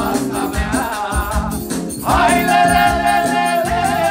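Manele band playing live on synthesizer keyboard and electric guitar over a steady beat with bass. About two seconds in, a long lead note slides down and then holds.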